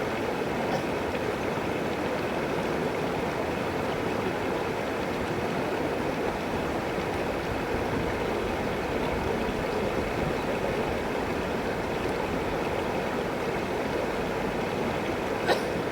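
River water flowing in a steady, even rush. One brief sharp click near the end.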